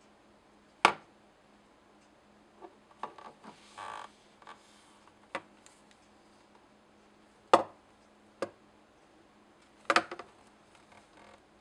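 Handling noise of an LG Nexus 4 phone: sharp knocks as the glass-backed phone is turned over and set down on a tabletop, the loudest about a second in, again past the middle and a double knock near the end, with lighter taps and a brief rubbing between them.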